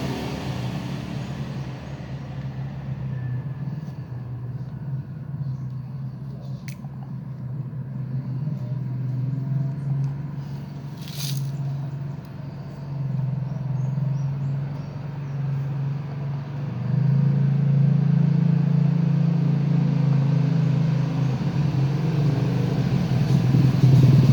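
Steady low engine drone that grows louder about two-thirds of the way through, with two brief sharp sounds, a click and a short hiss, in the first half.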